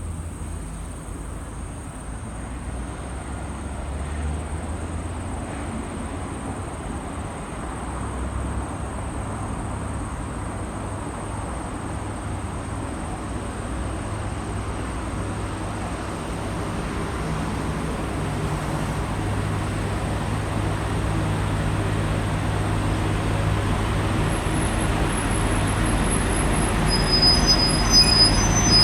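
JR Kyushu KiHa 200 series diesel railcar running and drawing steadily nearer, its engine hum growing louder throughout, with short high-pitched squeals near the end.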